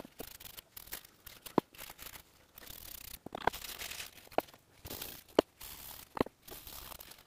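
Quiet handling noises at a wooden workbench: a cloth rag rustling and crumpling in the hands, with a few scattered light knocks as wooden-handled chisels are picked up and set down.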